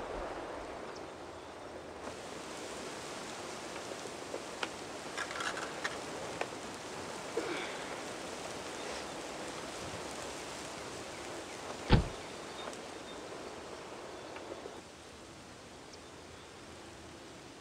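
Steady outdoor ambience with a few faint rustles and clicks, and one sharp thump about two-thirds of the way in: an old car's door being shut.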